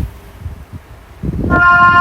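Low rumbling noise as the sound begins, then a siren under test starts up about three-quarters of the way in, sounding a loud, steady tone.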